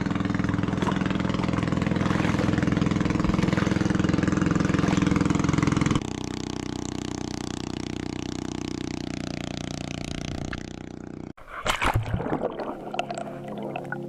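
A steady engine-like drone over water noise, which drops in level partway through. After a sudden cut near the end come muffled underwater bubbling and knocks.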